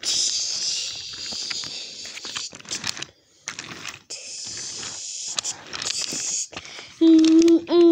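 Toy-train play: bursts of soft hissing with light clicks of wooden toy trains on wooden track, then about a second from the end a loud steady hooting train-horn call starts, in short repeated blasts.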